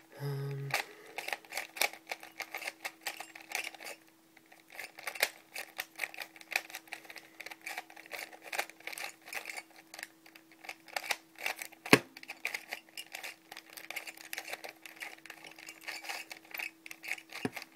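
Homemade 3x4x5 plastic puzzle cube, built from ZhanChi cubes, being turned fast during a solve: a rapid, uneven run of plastic clicks and clatter as its layers turn. There is a short lull about four seconds in and one sharp, louder clack about twelve seconds in, over a faint steady hum.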